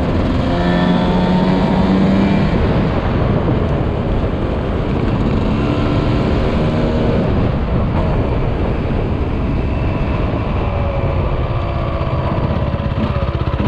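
Dirt bike engine running under way, mixed with heavy wind rush on the microphone; the engine note holds steady for a couple of seconds at a time, about a second in and again around six seconds in.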